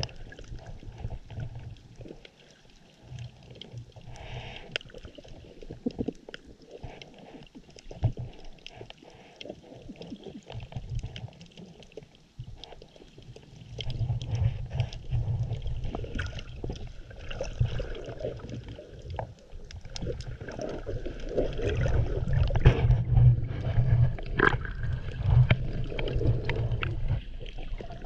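Underwater water noise picked up by a GoPro HERO6 below the surface: a muffled low rumble of moving water with scattered small clicks and crackles. The rumble grows louder about halfway through.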